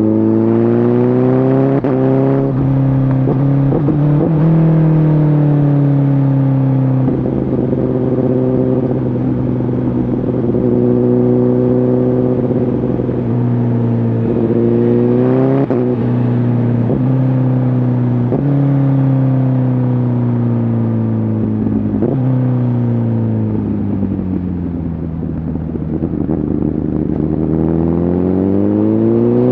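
Honda CBR1000RR Fireblade's inline-four on a Shark Factory aftermarket exhaust, ridden under load. The revs climb and drop back sharply several times, ease off about three-quarters of the way through, then climb again near the end.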